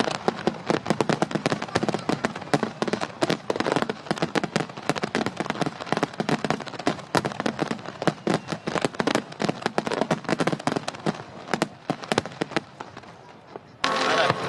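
Aerial fireworks crackling: a dense, rapid run of sharp pops and bangs that thins out near the end.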